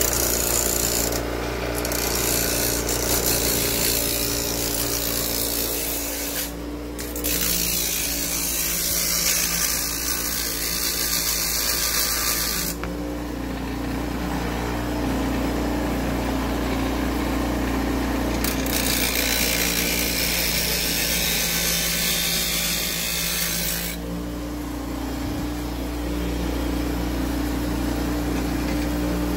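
Electric power tool motor running steadily, with three long spells of loud abrasive grinding as work is pressed to it, each cutting off sharply.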